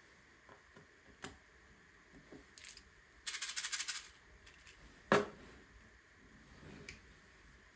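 Small plastic LEGO pieces clicking and clattering: scattered light clicks, a burst of rapid rattling a little past three seconds in that lasts under a second, and one sharp click about five seconds in.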